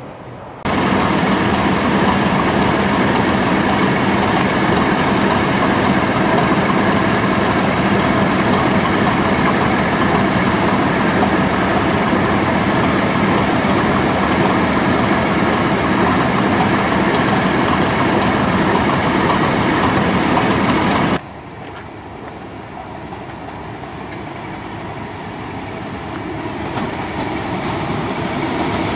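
Class 31 diesel locomotive 31271, its English Electric V12 engine running loud and steady at close range while standing still. After a cut about 21 seconds in, the locomotive is heard approaching along the line, growing steadily louder.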